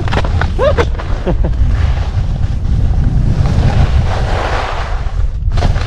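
Wind buffeting an action camera's microphone while skiing downhill at speed, a heavy steady rumble, with the hiss of skis sliding and scraping on groomed snow that swells about four seconds in.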